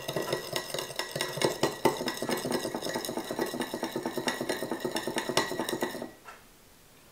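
Metal spoon stirring lemon juice and sugar in a small glass bowl, a quick run of clinks and scrapes against the glass that stops about six seconds in.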